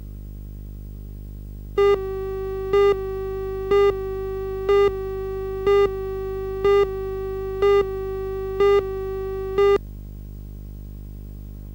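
Broadcast videotape line-up tone: a steady, buzzy mid-pitched electronic tone that starts about two seconds in, jumps to a louder short pip once a second for nine pips, and stops about ten seconds in. A constant low hum runs underneath.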